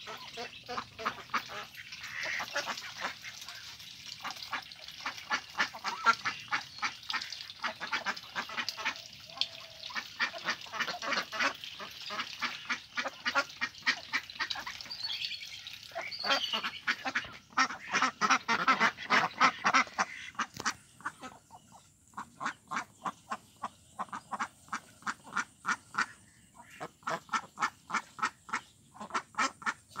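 A flock of domestic ducks quacking, many calls overlapping in quick runs. About twenty seconds in the background hiss drops, and the quacks come as a steady series of about three a second.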